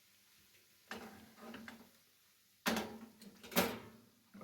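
A few light clinks and knocks of kitchen utensils and dishes, the two loudest about two and a half and three and a half seconds in.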